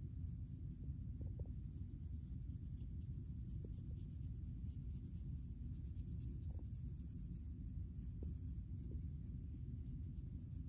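Fine-tooth plastic comb scratching through short, tightly waved hair and over a flaky scalp, combing out dandruff in repeated short strokes, over a steady low rumble.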